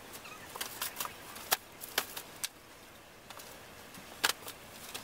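Scattered light knocks and taps at irregular intervals, as cardboard boxes are handled and stacked onto a hand truck.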